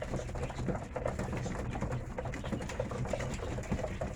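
Racing pigeons in their loft: steady low cooing with many small scattered taps and scuffles.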